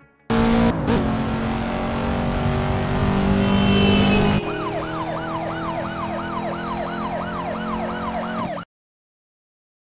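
A car racing past at speed, then a police siren yelping in fast up-and-down sweeps, about three a second, that cut off suddenly.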